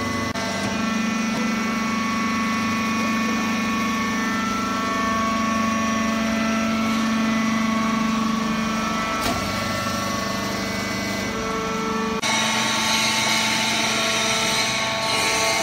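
Hydraulic baling press running: its hydraulic power unit, an electric motor driving the pump, makes a steady hum with several held tones. The sound changes abruptly twice, about nine and twelve seconds in, getting brighter and hissier near the end.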